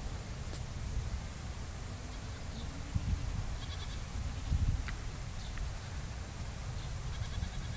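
Dutch Landrace goat giving one faint, drawn-out bleat in the first half, over a steady low rumble on the microphone.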